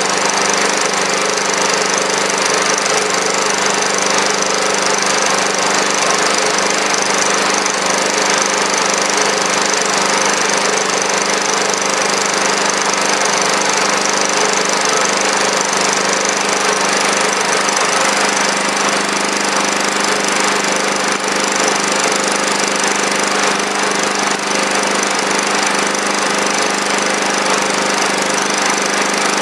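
Small engine running steadily under load at a set speed, on its standard fuel.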